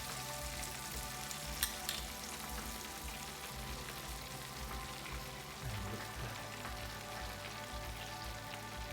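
Battered chicken tenders frying in hot oil in a deep fryer: a steady sizzling hiss, with two sharp clicks about a second and a half in.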